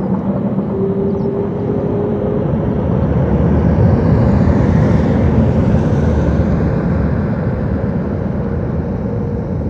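Airbus Beluga XL's Rolls-Royce Trent 700 turbofans on the landing rollout just after touchdown: a steady jet rumble that swells about four to six seconds in and then eases off.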